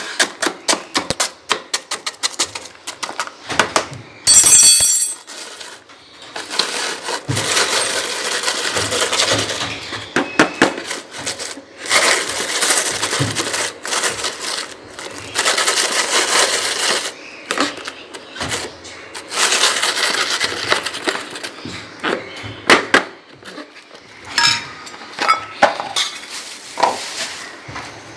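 Clinking and clattering of a dish and utensils, with many sharp clicks and scraping stretches, as soft food is prepared. About four seconds in there is a brief, loud, high-pitched call.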